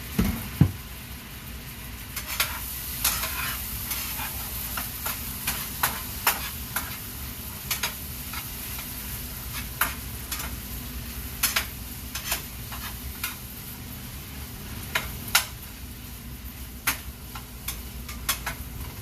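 Beef sizzling in a frying pan with a steady hiss, while a utensil is stirred through it, knocking and scraping against the pan in short sharp clicks every second or so.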